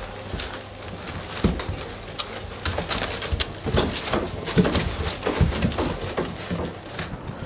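Golden retriever puppies making short, irregular grunting and squeaking sounds as they suckle from their mother, with small clicking and smacking noises mixed in. The sounds get busier after about a second and a half.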